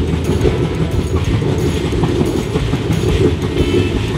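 Passenger train coach running along the track, heard at an open coach doorway: a steady low rumble with the clatter of the wheels on the rails.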